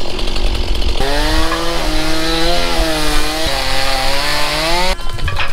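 Stihl MS170 two-stroke chainsaw running hard, its engine note wavering up and down as it works under load, typical of cutting into wood. The sound breaks off abruptly near the end.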